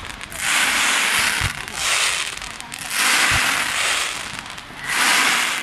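Aerial fireworks: four waves of dense crackling, each lasting about a second, from glittering gold crackle bursts. Two short, dull low booms fall between them.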